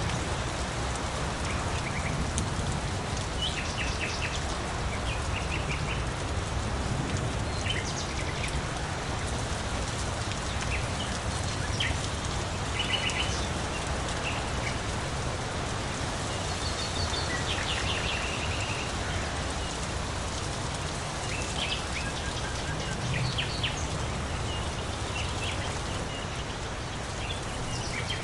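Steady rain falling, with songbirds giving short chirps in small clusters every few seconds over it.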